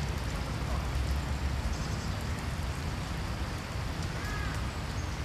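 Steady splashing and trickling of a small fountain jet falling back into a stone basin's pool, over a low rumble.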